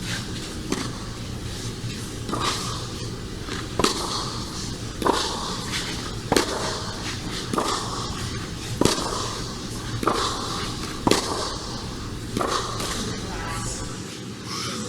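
Tennis ball struck back and forth with rackets in a rally: sharp pops about every second and a quarter.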